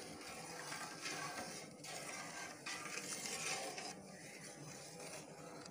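A spatula stirring milk and grated carrots in a large cooking pot, the liquid swishing and the spatula scraping the pot in uneven strokes.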